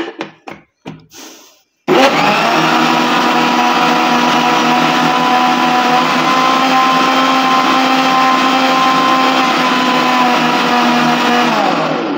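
Electric mixer grinder blending a papaya milkshake: a few light knocks, then the motor starts abruptly about two seconds in, runs steadily at full speed, and slows with a falling whine near the end.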